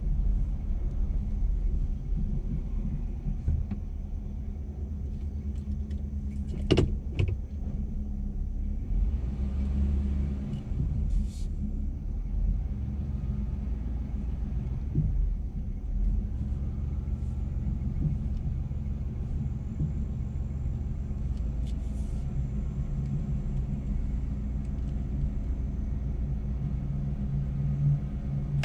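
2021 GMC Sierra X31 pickup driving through deep sand: a steady low engine and drivetrain rumble, broken by a few sharp knocks, the loudest about seven seconds in.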